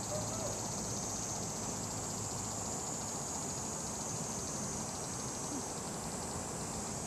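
Steady high-pitched chorus of insects, with an even low rumble underneath.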